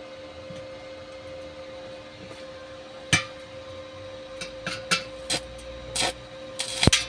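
Steady electrical hum with one sharp metallic knock about three seconds in, then a quickening run of knocks and taps on metal near the end.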